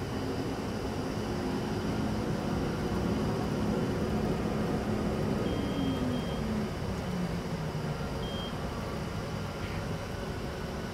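Large commercial tumble dryer (200-pound capacity) running with a steady mechanical rumble and hum. About halfway through, a motor hum drops steadily in pitch, and three short high electronic beeps sound.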